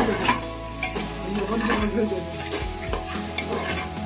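A metal ladle stirring and scraping mixed vegetables frying in an aluminium pressure cooker, with irregular clinks of the ladle against the pot over a sizzle.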